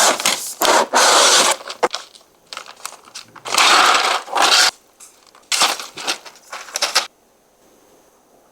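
Plastic keycaps being handled: scattered sharp clicks and three bursts of clattering, rustling noise, each about a second long. The sound stops about seven seconds in.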